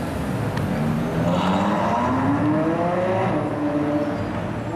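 Ferrari F12berlinetta's V12 pulling away under hard acceleration. A low rumble at first, then from about a second in the engine note climbs in pitch, drops at an upshift about three seconds in, and climbs again.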